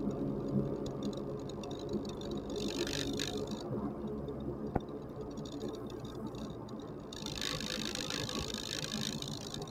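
Steady engine hum and road noise of a moving vehicle, with a hissing rush that swells briefly about three seconds in and again over the last couple of seconds, and a single sharp click near the middle.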